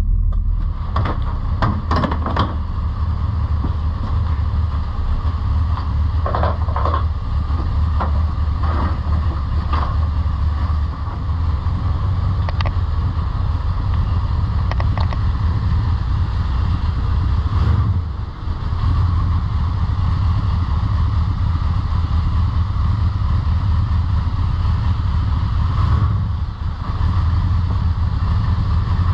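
Custom Corvette-based show car's V8 engine idling with a steady low rumble as the car is driven slowly onto a truck's loading ramp. A few short clicks and knocks come in the first ten seconds.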